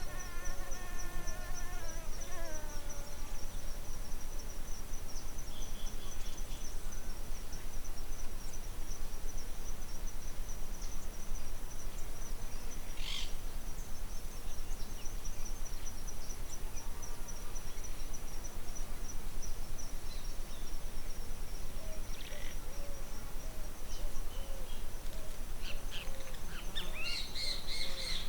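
Outdoor insect chorus: a steady, high, rapidly pulsing trill that never stops. A call with a falling pitch fades out in the first couple of seconds, and a few short bird chirps come and go, with bird calls starting near the end.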